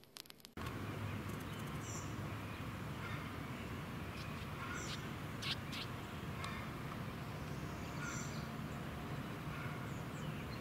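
Outdoor ambience: a steady background rush with a few short, high bird chirps a couple of seconds apart.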